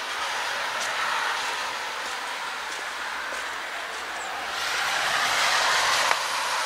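Road traffic passing, a steady tyre hiss that swells to its loudest about five to six seconds in, with one short click near the end.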